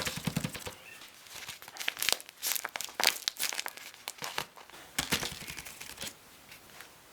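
Crinkling and crackling of plastic handled by hand, with quick irregular clicks, coming in several bursts.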